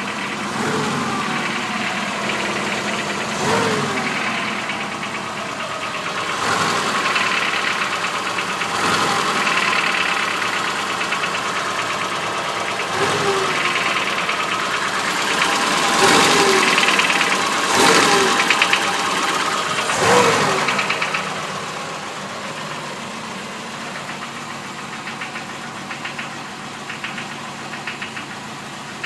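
BMW 2002's M10 inline-four engine running, blipped briefly about seven times, then settling to idle with a knock from the bottom end that comes only at idle. The owner traces the knock to excessive crankshaft end play, having found the pistons and rods tight.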